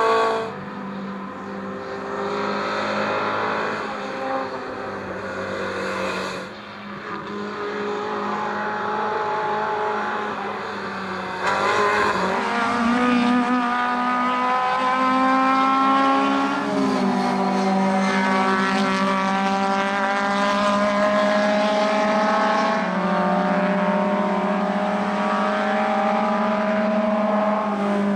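Small four-cylinder 1300 cc touring race cars (Lada and Zastava) running at full throttle past the trackside, several engines overlapping. Their engine notes climb in pitch as they accelerate, with brief drops at the gear changes.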